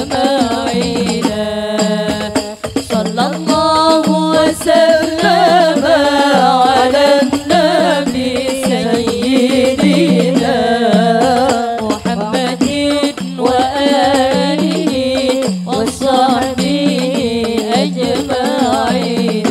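A woman sings a sholawat, an Islamic devotional song, through a microphone and PA loudspeaker, over a steady percussion beat of about one stroke a second.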